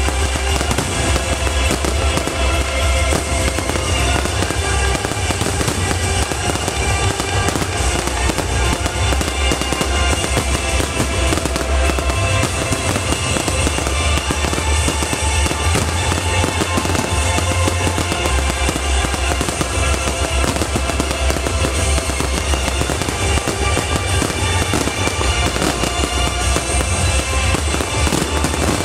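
Fireworks display bursting and crackling without pause, dense overlapping bangs over loud music with a strong low rumble.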